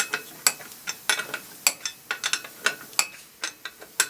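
Hand wrench tightening a car wheel's lug nuts: a run of sharp metallic clicks and clinks, several a second at an uneven pace.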